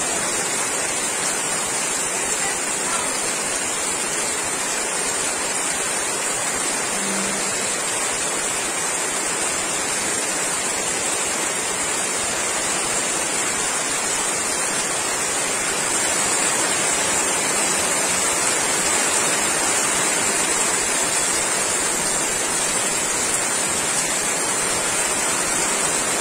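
Heavy rain falling steadily as a dense, even hiss. It grows a little louder about two-thirds of the way through.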